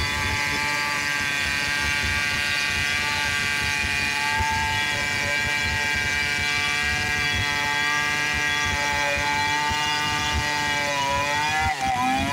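Stihl chainsaw running at full throttle while ripping lengthwise through a mahogany log, its engine note steady. Near the end the revs drop and rise several times.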